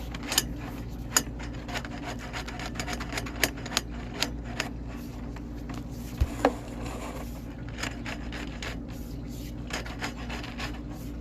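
Sewer inspection camera push cable being fed into the drain line, rubbing and scraping with irregular clicks over a steady low hum, and a sharper knock about six seconds in.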